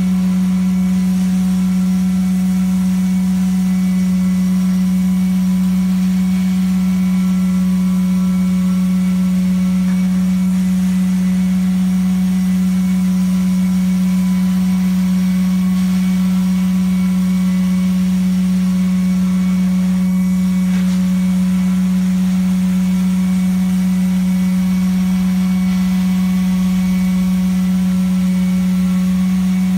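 Carpet hot water extraction equipment running steadily as the extraction head is worked across the carpet: an even, loud machine hum with a hiss of suction over it, unchanging throughout.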